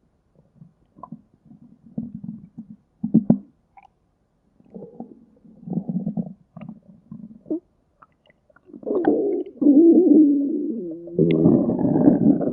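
Stomach growling: short, scattered gurgles, then from about nine seconds a longer, louder rumble whose pitch wavers.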